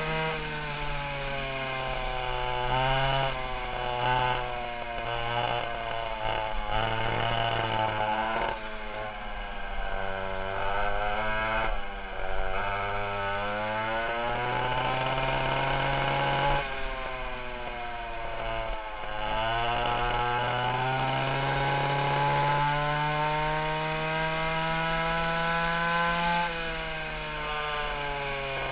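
Dual 820 two-stroke chainsaw engines of a 1960 Fox go-kart running hard on the move. Their whining pitch climbs and falls repeatedly as the throttle is opened and closed, dropping sharply several times and then winding back up.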